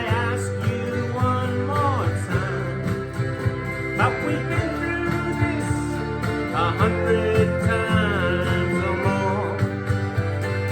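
Country folk music: steady acoustic guitar strumming under a wavering, sustained melody line.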